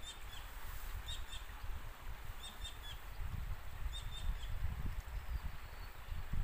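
A small bird chirping in short clusters of two or three quick high notes, repeated every second or two, over a steady low rumble.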